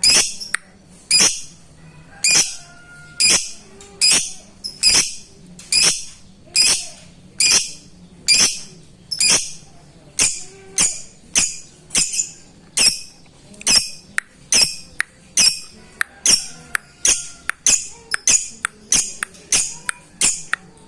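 Lovebird giving short, shrill, sharp calls over and over, about one a second and coming faster in the second half. This is the ngetik call of a lovebird calling to a rival, which keepers play as a lure to provoke quiet lovebirds into singing.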